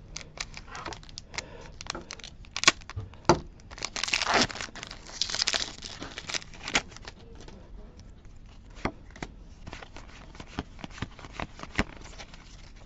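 Foil booster pack wrapper crinkling and tearing open in a burst about four seconds in, with light clicks and rustles of trading cards being handled and slid through the fingers.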